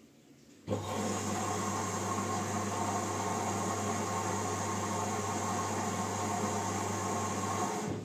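LG Direct Drive front-loading washing machine taking in water: a steady hum with water rushing into the machine. It starts abruptly about a second in and cuts off just before the end.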